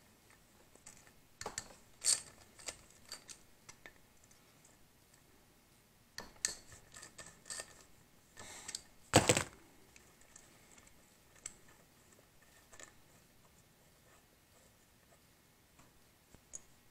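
Socket ratchet clicking in short runs while loosening the VTEC solenoid bolts on a cylinder head, with small metal clinks of bolts and tools set down; the loudest is a single knock about nine seconds in.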